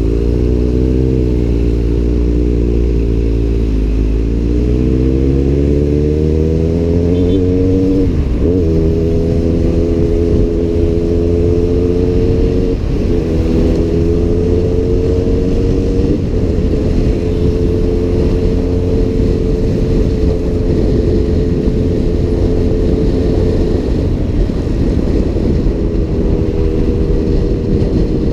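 Kawasaki Z800's inline-four engine through an Arrow aftermarket exhaust, under way. It holds steady, then pulls up through the revs from about four seconds in, dropping in pitch at three upshifts, about 8, 13 and 16 seconds in. It then cruises at steady revs with wind rushing past.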